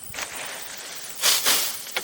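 Hand work with bamboo: short scraping and rustling strokes over a low hiss, with two loud strokes in quick succession a little past halfway.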